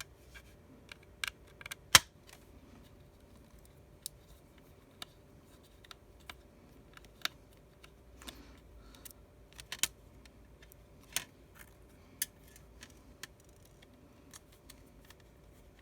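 Sparse, irregular small clicks and taps of a precision screwdriver and small tools working the tiny screws around an iPhone 6s's charging port, the loudest click about two seconds in.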